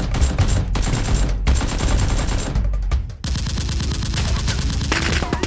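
Rapid automatic gunfire sound effects in long bursts, with a short break about three seconds in, over background music.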